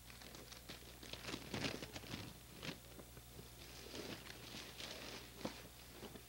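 Tissue paper and plastic wrapping rustling and crinkling in irregular bursts as a present is pulled out of its box by hand.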